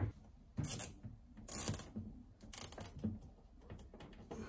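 Plastic zip tie being pulled tight around wires, its teeth ratcheting through the lock in three or four short pulls about a second apart.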